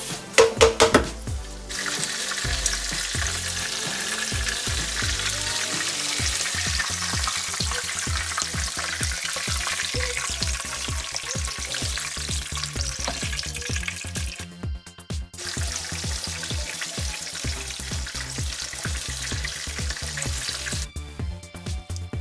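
Tofu pieces sizzling as they shallow-fry in hot oil in a non-stick wok, with metal tongs clicking against the pan a few times in the first second or so as the pieces are turned. The sizzle dips briefly about two-thirds of the way through.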